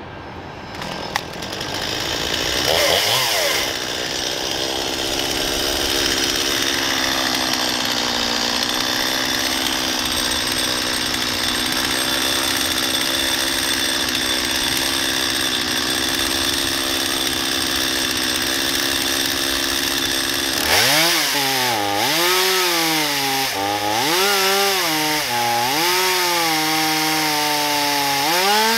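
Chainsaw mounted in an Alaska chainsaw mill ripping lengthwise through a black walnut log. The engine comes up to speed about two seconds in and runs steadily under load. Over the last several seconds its pitch rises and falls repeatedly.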